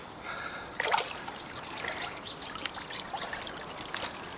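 Shallow river water splashing and trickling around a large wels catfish being held at the bank, with many small drips and a stronger splash about a second in.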